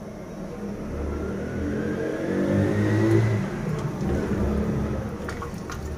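A motor vehicle's engine going by, its pitch rising as it accelerates, loudest about three seconds in and then fading. A few light clicks of a wooden spatula against a clay pot near the end.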